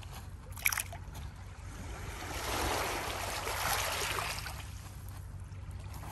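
Small lake waves lapping over a pebble beach, with one wash swelling up and fading away in the middle. A brief sharp click comes under a second in.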